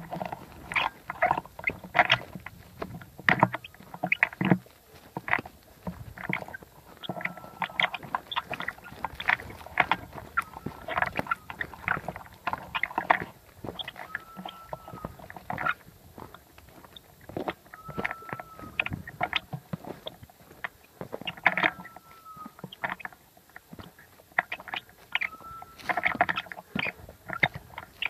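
A setter moving through dry pine scrub and rocky brush: irregular rustling of twigs and grass and the scuff of its paws close to the microphone. A short, high beep comes about every four seconds from about a quarter of the way in.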